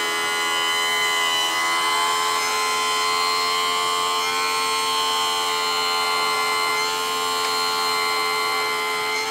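Electric tilt-and-trim pump motor on a 1987 Johnson 40 hp outboard running with a steady whine, being cycled after a fluid refill to purge air from the system.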